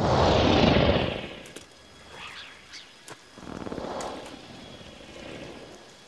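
A loud whoosh that sweeps down and fades over about a second, followed by quiet, dark ambience with a few faint clicks and short chirps.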